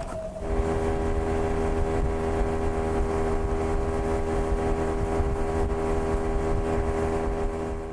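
Outboard motor, a Hidea 9.9, running the boat at a steady speed with an even engine hum and a low rumble.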